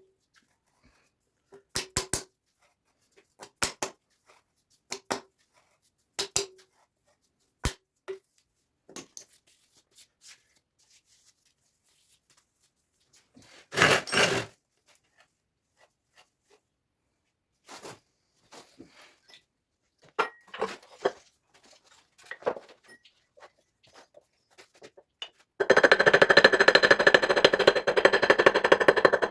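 Metal parts and hand tools clinking and knocking, some strikes ringing briefly, then about 26 s in a power tool starts a loud, very fast continuous rattle.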